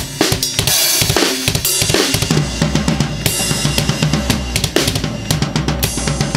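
Acoustic drum kit played in a busy groove with tom fills near the start: the kick drum carries a Click-kick heavy (H) click membrane in the slot closest to the drum head, which gives a cleaner, less loud click attack, under snare and cymbals. It is heard through the camera's own microphone, without processing.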